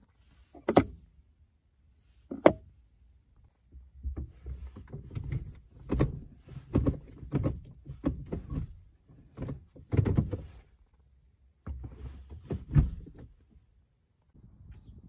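Two sharp knocks, then the gear lever of a five-speed manual gearbox being worked through the gates, giving a run of clunks and clicks for several seconds.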